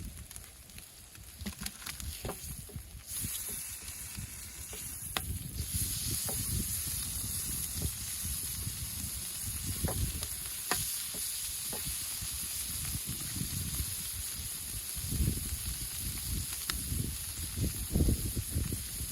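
Food frying in butter in a hot pan, a steady sizzle that grows louder about three seconds in and again about six seconds in. Scattered low thuds and a few sharp clicks sound over it.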